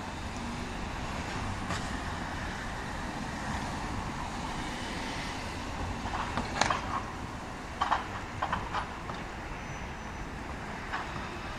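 Solaris NGT10 low-floor tram running past on street track, a steady rumble, with several short sharp clicks about halfway through and once near the end.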